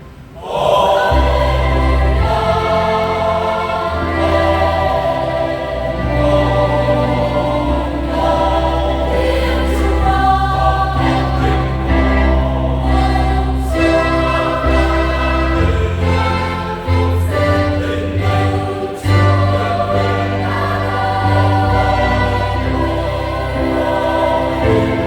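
Choir singing a Vietnamese Catholic Easter hymn over instrumental accompaniment, starting just after a brief dip at the very beginning.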